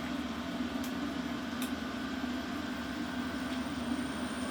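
Belt-driven machine tool running with a steady hum, its spindle turning at a slow belt speed.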